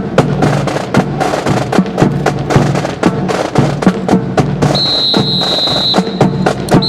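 Drum cadence with crisp wooden clacks of rifles being handled in unison in a rifle fancy drill. A steady high whistle tone sounds for about a second near five seconds in, and briefly again near the end.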